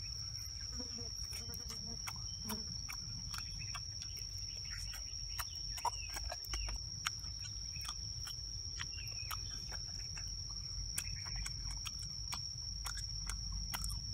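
A steady high-pitched insect drone over a low rumble, with scattered small clicks and smacks of eating grilled oysters from their shells.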